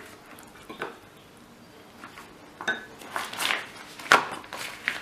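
Scattered clinks and knocks of kitchen utensils against bowls and dishes, a handful of separate strikes, the sharpest about four seconds in.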